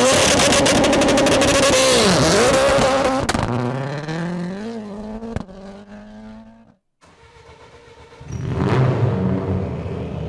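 Ford Puma Rally1's turbocharged 1.6-litre EcoBoost engine revving high as the car pulls away, with a rapid crackle over it and the pitch dipping twice at about two seconds in, then fading as it drives off down the road. After a short break the engine is heard again, loud, about eight seconds in.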